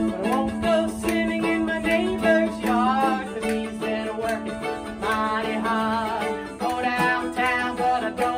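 A woman singing a song, accompanied by a strummed mandolin and ukulele.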